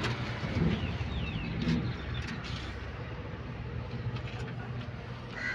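An engine idling steadily, with a few short bird chirps about a second in.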